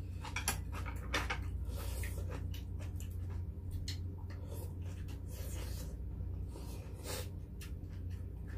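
Mouth sounds of eating beef short-rib soup: noodles and broth being slurped and meat chewed, in a string of short, irregular slurps and smacks.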